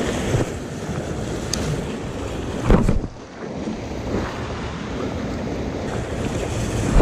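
Surf washing over shore rocks, with wind buffeting the microphone. A brief thump a little under three seconds in.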